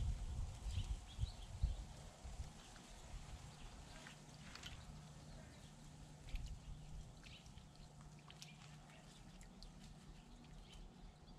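Quiet garden ambience: low thumps in the first two seconds, then faint scattered bird chirps and clicks over a low steady hum.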